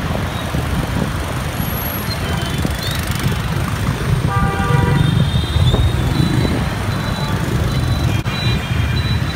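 Dense scooter and motorbike traffic: a steady din of many small engines. A horn honks briefly about four seconds in.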